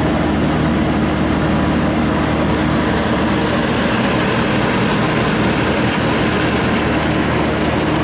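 1963 General Electric Thinline through-the-wall air conditioner running on high cool: the fan blows air through the grille over a steady compressor hum. It runs smoothly, which the owner takes for a healthy compressor.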